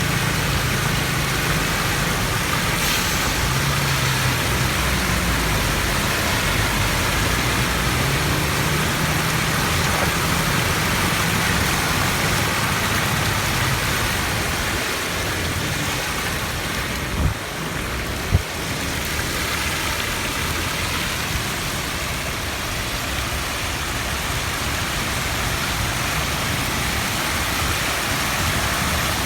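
Steady rushing noise of rain and floodwater, with a low hum under it for the first dozen seconds. Two short sharp knocks come about a second apart near the middle.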